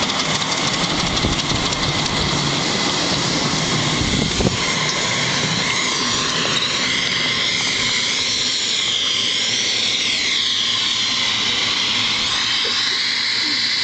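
Miniature live-steam locomotive hissing steam, a steady loud hiss that wavers in pitch partway through, with a single knock about four and a half seconds in.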